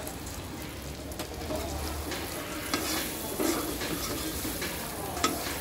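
Chicken frying and sizzling in oil in a metal kadai as raw potato cubes are tipped in, then stirred with a metal slotted spoon that scrapes against the pan now and then.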